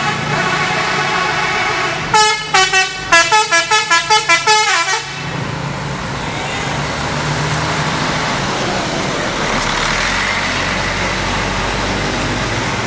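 A bus's multi-tone 'telolet' horn plays a quick tune of about ten short toots that change pitch, starting about two seconds in and stopping about three seconds later. Around it, a bus engine and road traffic keep up a steady rumble.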